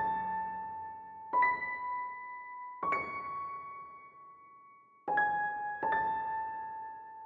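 Background music: a slow electric-piano melody of single notes, one every second or two, each ringing on as it fades.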